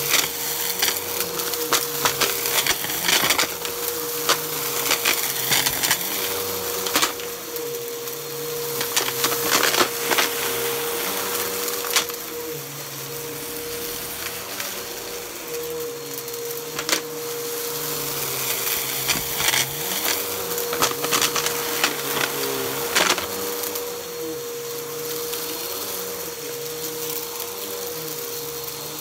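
Bagless upright vacuum cleaner running on shag carpet, with a steady motor whine and a low hum that shifts as it is pushed back and forth. Sharp clicks and crackles come now and then: grit and debris crunching as the brushroll picks them up.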